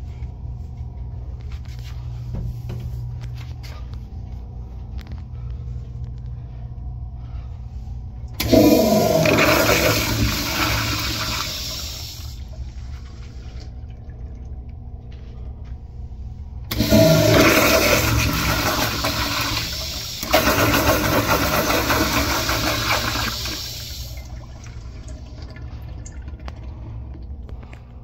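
1960s "Standard" Instanto tankless toilet flushing through its chrome flush-valve piping. The first sudden rush of water comes about eight seconds in and drains away over a few seconds. Two more rushes follow close together in the second half.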